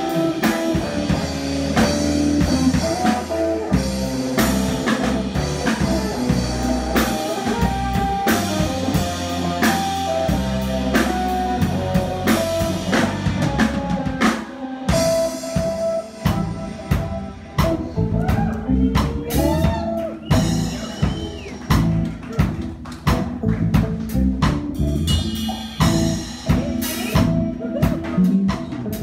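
Live instrumental band music: electric guitar, electric bass and drum kit playing together. About halfway through, the sustained low bass notes thin out and the drum strokes come to the fore.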